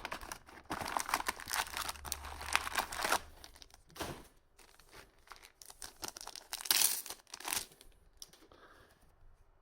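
A trading-card booster pack wrapper being torn open and crinkled. The crackling is densest for the first three seconds, then comes in a few shorter bursts and dies down toward the end.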